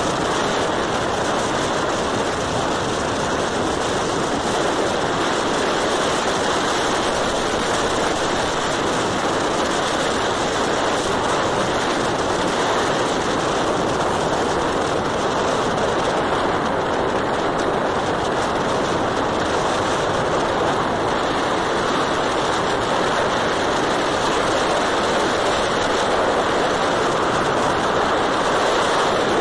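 Steady rush of wind and road noise on a moving motorcycle, even and unbroken.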